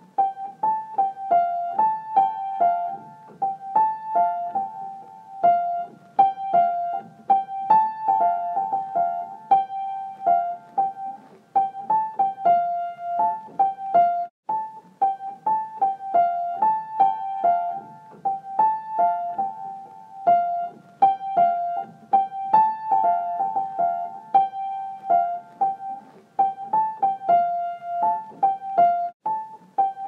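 Instrumental ringtone tune played on a piano-like keyboard. A short melody of quick notes repeats over and over in a loop, with a brief break about fourteen seconds in.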